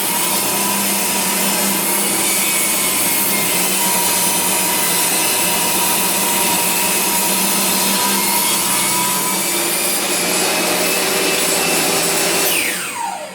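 Makita 2704N table saw running steadily while ripping a board of old recycled Australian ash. Near the end the motor is switched off and spins down with a falling whine.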